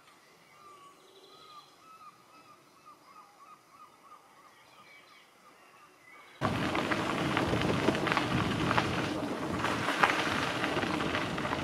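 Faint, repeated bird calls over quiet shoreline air. About six seconds in this cuts suddenly to loud rushing noise from riding a bicycle along a gravel path: wind on the microphone and tyres crunching on gravel, with many small clicks.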